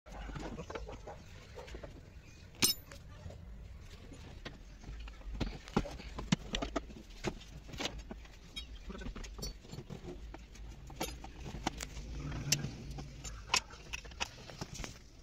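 Irregular clicks, knocks and metallic clinks of hand tools, screws and plastic trim as a car's dashboard panels are unfastened, over a low steady rumble.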